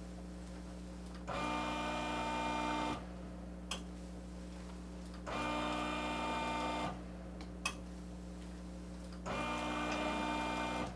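Motorised chiropractic traction table running in cycles, tractioning the spine. Its motor whines for about a second and a half, pauses, and starts again three times, about every four seconds, with a few light clicks in between.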